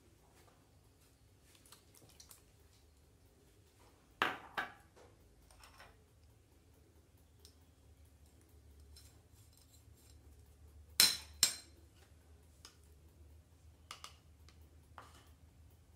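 Sharp clicks from kitchen utensils over faint room tone: two quick pairs of snaps about four and eleven seconds in, then a few lighter clicks near the end.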